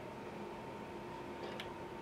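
Small DC motor of a homemade vibration tester running steadily at 1.5 volts, a faint even hum, with a couple of light clicks about one and a half seconds in as the rig is handled.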